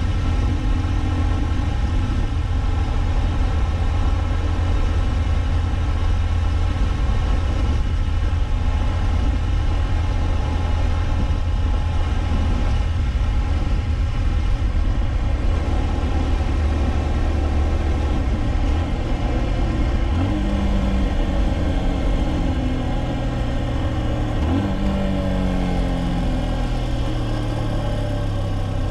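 Honda CB223S's 223 cc air-cooled single-cylinder engine running steadily at cruising speed, heard from the rider's seat. In the last third the engine note steps up and down in pitch several times, as with gear changes.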